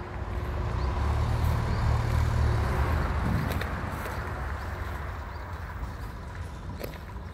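Road traffic going by: a vehicle's noise and low rumble swell to their loudest about two seconds in, then slowly fade away.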